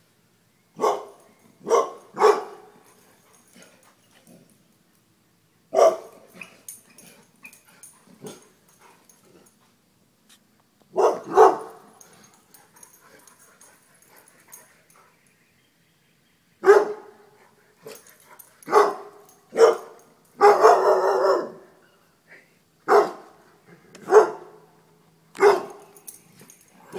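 Dog barking in alarm at a mounted deer head: loud single barks and short runs of two or three, at irregular gaps, with a longer burst of barking about two-thirds of the way through.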